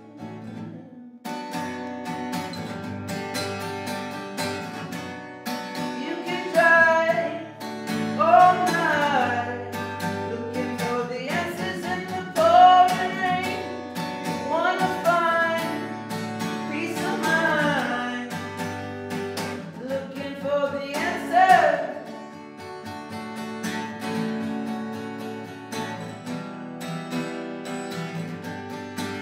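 Acoustic guitar strummed in a tiled bathroom, starting about a second in, with a man singing over it from about six seconds in until near the twenty-two-second mark, then the guitar carrying on alone.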